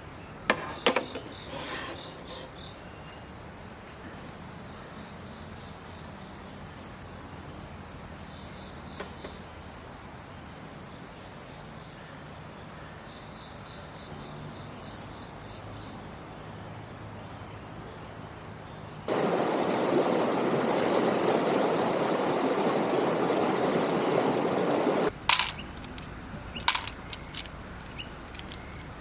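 Steady high-pitched insect chorus with a few sharp clicks. About two-thirds of the way in it cuts off abruptly, replaced for about six seconds by a louder, even rushing noise, then returns.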